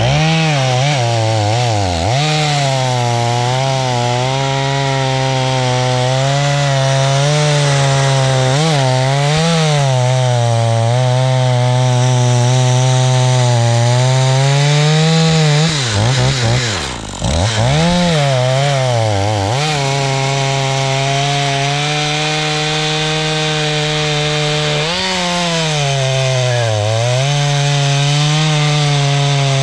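Echo CS-490 51cc two-stroke chainsaw running at high throttle and cutting wood, its engine pitch sagging each time the chain takes load and climbing back between, with the deepest drop about seventeen seconds in.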